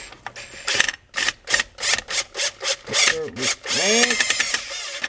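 Quick scraping and clicking strokes from handling parts, then a power driver running for about a second near the end, driving a screw into a hood-latch handle mount.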